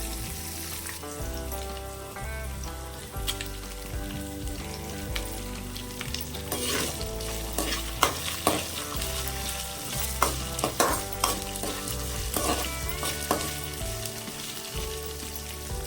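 Food sizzling in hot oil in a pan while a spatula stirs it, with a run of sharp metal scrapes and taps against the pan through the middle. Background music with a steady bass line plays under it.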